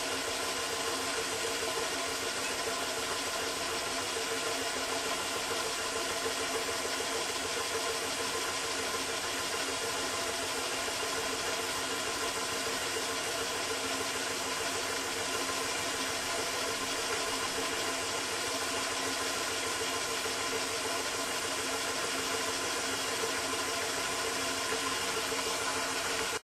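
Water heating in a stainless steel pot on an electric hotplate, giving a steady, engine-like rumble and hiss with no change throughout.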